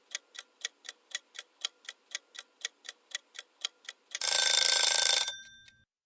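Timer ticking about four times a second, then, about four seconds in, a loud alarm bell rings for about a second and dies away: the signal that the countdown has run out.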